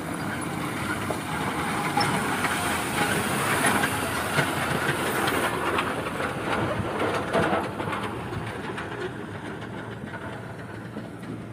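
Heavy goods truck driving past on a rough dirt road, its engine running amid many knocks and rattles, loudest in the first half and fading as it moves away.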